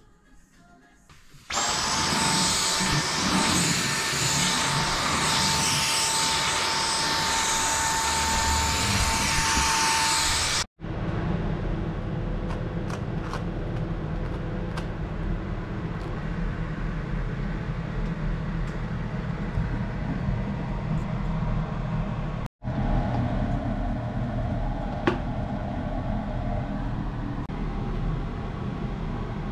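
Dyson cordless stick vacuum switched on about a second and a half in, running with a steady high whine over a loud rushing of air, then cut off suddenly. The rest is a lower, steady hum with a few light clicks.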